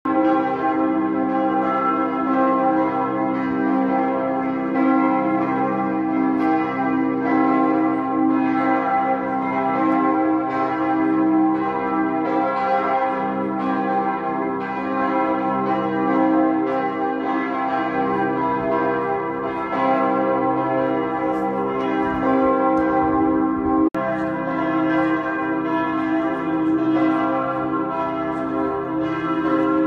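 Church bells pealing, with many strikes overlapping into a continuous ringing wash, broken once for a moment late on.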